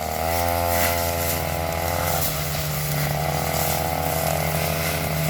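Petrol brush cutter engine running at high speed while cutting undergrowth, its pitch dipping briefly about two seconds in and then picking back up.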